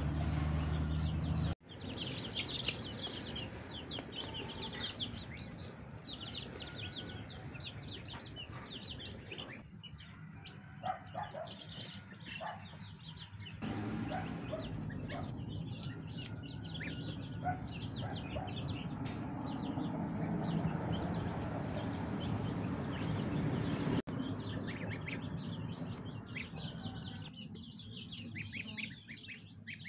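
A flock of goslings and ducklings peeping continuously, many short high peeps in quick runs. A steady low hum fills the first second and a half and cuts off abruptly.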